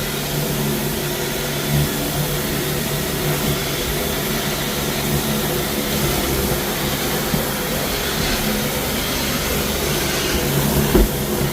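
Floor-cleaning equipment used on travertine tile running steadily: a constant hum with an even hiss over it, and a single short knock near the end.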